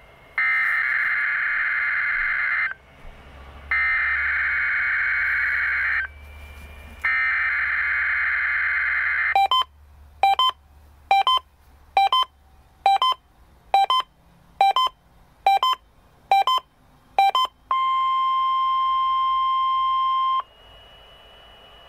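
NOAA Weather Radio Emergency Alert System weekly test coming through a Uniden Bearcat WX100 weather radio. It opens with three loud, buzzy digital data bursts (the EAS header code), each about two seconds long with short gaps between them. Then come nine short beeps about one a second, and then a steady warning-alarm tone for a couple of seconds that cuts off to a faint steady tone.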